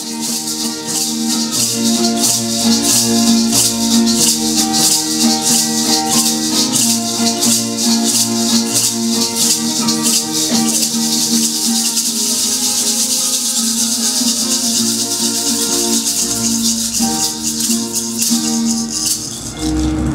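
Traditional highland Chiapas ceremonial music played on a harp and a small guitar, with a gourd maraca shaken in a rapid, steady rhythm over the plucked notes.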